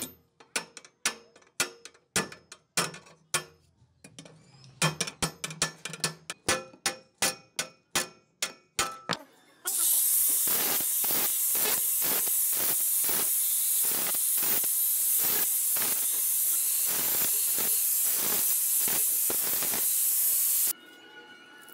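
Steel hammer striking steel bicycle frame tube ends in a series of ringing metallic blows. From about ten seconds in, a hand-held angle grinder cuts through the rusted spokes of a bicycle wheel with a loud, steady hiss and a regular ticking about twice a second, then stops suddenly shortly before the end.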